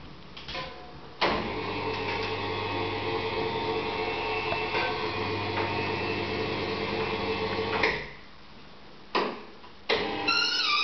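Electric lift motor of a height-adjustable wall cupboard running steadily for about seven seconds, a hum that starts and stops abruptly. Near the end, after a couple of clicks, another run starts with a wavering high squeal.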